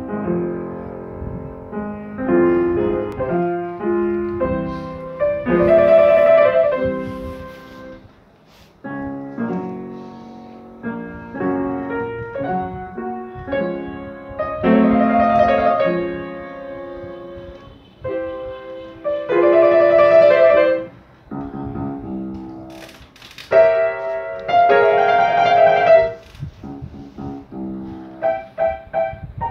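Upright acoustic piano played by a child from sheet music, a piece in phrases that build to loud chords and fall back, with short dips between.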